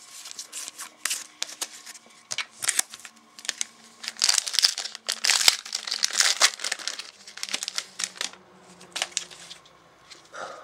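Foil trading-card pack wrapper crinkling and tearing as it is opened, a run of sharp crackles that is densest in the middle.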